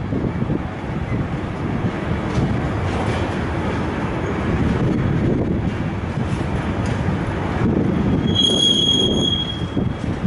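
Intermodal freight train of container and swap-body wagons rolling past, a steady rumble of wheels on rail. A little past eight seconds in, a high steady wheel squeal rings out for about a second and a half.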